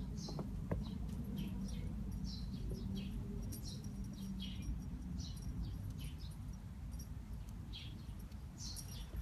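Small birds chirping: many short, high, falling chirps at an irregular pace, several a second, over a steady low rumble.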